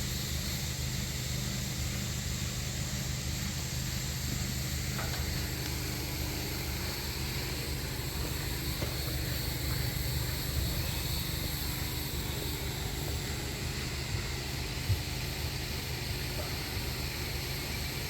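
A vehicle engine idling steadily, with a single light knock about fifteen seconds in.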